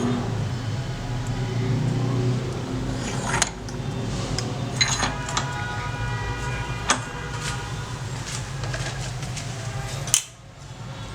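Metal parts and tools clinking and knocking a few separate times, some with a brief ring, over a steady low mechanical hum.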